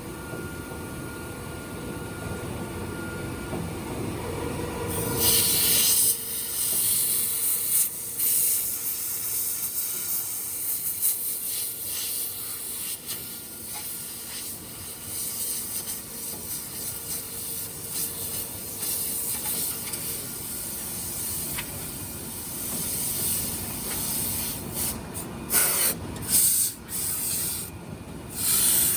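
Compressed air hissing at a milling machine, starting about five seconds in over the lower hum of the running machine. It flickers and cuts out briefly several times near the end.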